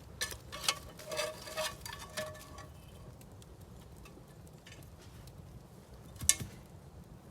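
A stick knocking and scraping against a hot cast iron skillet as it is worked out of the fire: a quick flurry of light knocks and clicks with brief ringing notes, then a single sharp knock about six seconds in.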